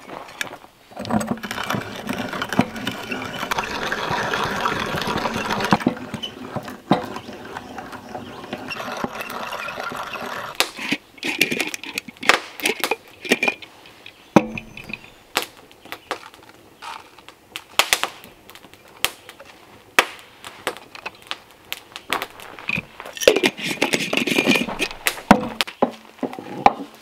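Hand-cranked coffee grinder grinding beans, a rasping crunch for several seconds near the start that then eases off, followed by scattered clicks and knocks as the grinder and its glass jar are handled.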